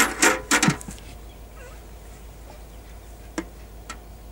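A few sharp clanks as a metal jerrycan is handled over a metal bucket, then a quiet trickle of liquid poured from the can into the bucket, with a couple of light clicks near the end.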